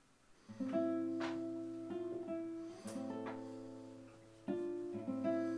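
Background music: plucked acoustic guitar notes ringing on, starting about half a second in, with a fresh chord a little after four seconds.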